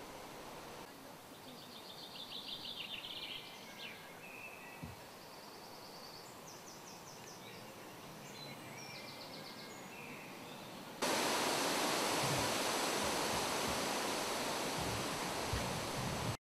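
Small songbirds singing a few short, fast, high trills over a low hiss. About eleven seconds in, a much louder steady hiss starts suddenly, with a few low knocks, and it cuts off abruptly at the end.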